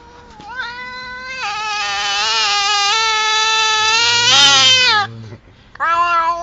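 Domestic cat yowling: one long drawn-out call of about four and a half seconds that grows louder toward its end, then a second call starting near the end.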